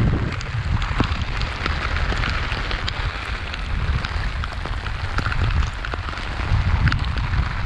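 Heavy tropical-storm rain pattering on an umbrella, with sharp ticks of individual drops, while gusting wind rumbles on the microphone.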